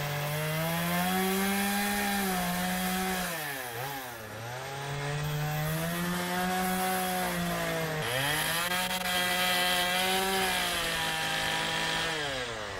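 Gas chainsaw running as it cuts into a log, with a steady engine note. The engine pitch dips and recovers twice, about four seconds in and again about eight seconds in.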